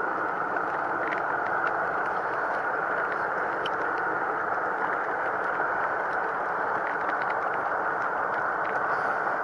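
Mountain stream flowing steadily: an even rush of water.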